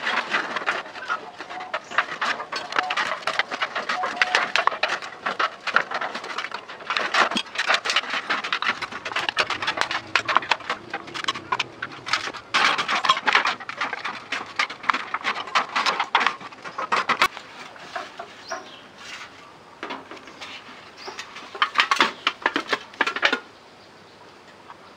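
Crackling and rustling of stiff green sheets being handled and cut with a knife, a dense run of small crackles that stops abruptly near the end.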